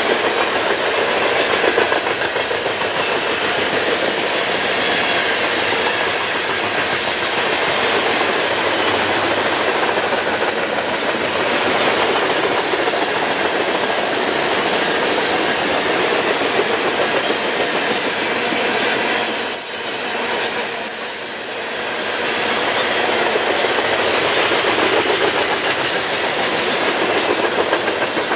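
Freight train of coal hopper cars rolling past at speed: a steady rumble of steel wheels on rail with repeated clacking as the wheels cross rail joints.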